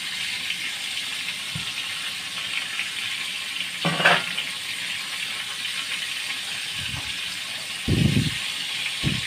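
Chicken and potato karahi sizzling and bubbling in a large aluminium pot, a steady hiss. About four seconds in a brief clatter as the lid comes off, and a few dull thumps near the end.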